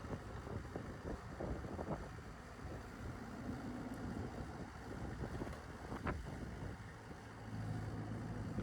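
Bobcat E26 mini excavator's diesel engine running steadily, with a few knocks from the machine and wind on the microphone.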